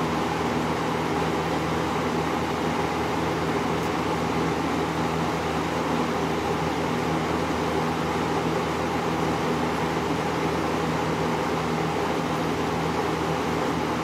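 1979 Kmart 20-inch box fan, model K-223, running steadily after repair: an even rush of moving air over a steady low motor hum, with no rattles or knocks.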